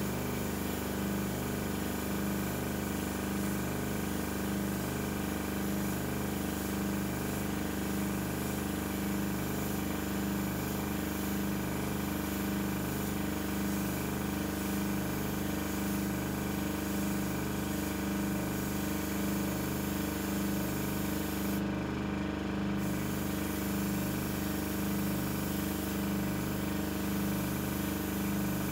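Small air compressor running steadily with a rhythmic pulsing hum, while a paint sprayer hisses as it coats a small part. The high hiss drops away briefly about three-quarters of the way through.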